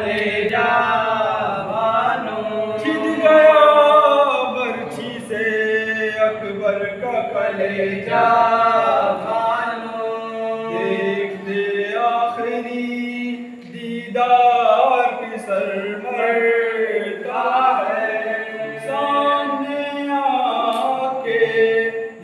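Men's voices chanting a Shia mourning lament (noha) together, unaccompanied, with long held, bending notes.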